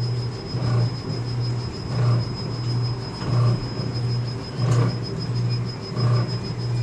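1980s Kiddie Rides USA coin-operated helicopter ride running: its motor drive hums steadily, swelling louder about every 1.3 seconds with each rocking cycle, over a faint, steady high whine.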